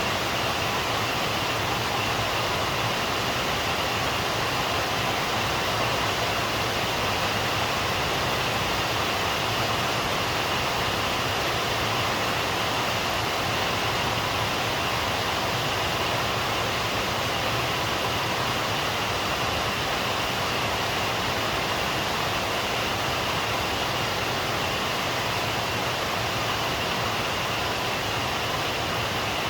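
Steady rain falling, an even hiss with no breaks or thunder claps.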